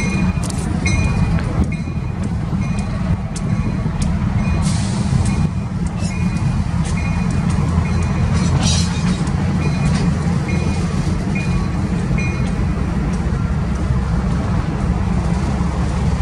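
Diesel locomotives of a Union Pacific local idling and moving slowly, a steady low engine rumble, with a bell ringing about once a second.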